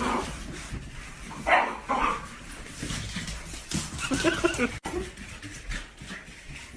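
A dog barking and whining in several short bursts, with one longer wavering whine about four seconds in.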